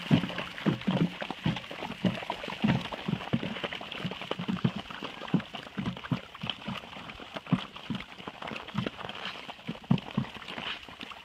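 Several Siberian huskies eating from one shared bowl: irregular chewing, slurping and bowl clatter mixed with paws scuffing on packed snow as they circle.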